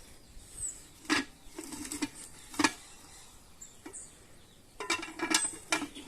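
Metal cookware clinking and knocking, like a utensil striking a cooking pot: two single ringing strikes, then a quick run of several near the end.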